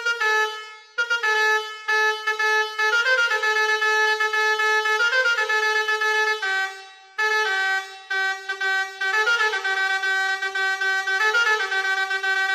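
Basuri multi-tone 'telolet' horn playing a tune: a loud, reedy horn sounding a run of held notes that step up and down in short phrases, with brief breaks about a second in and again around seven seconds in.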